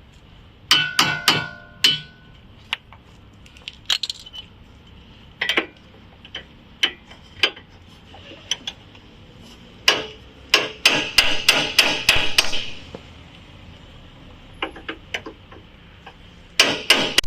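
Hammer blows on metal at the car's front suspension during work to free the lower ball joint. They come as a quick cluster of strikes, then scattered single blows, then fast runs of several strikes in a row. The first blows leave a short metallic ring.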